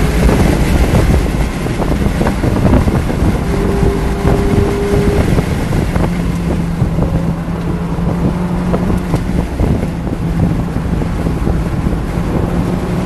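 A 2019 Mazda MX-5 Miata's four-cylinder engine pulls at a fairly steady pitch under load through a corner, heard from inside the car together with wind and road noise.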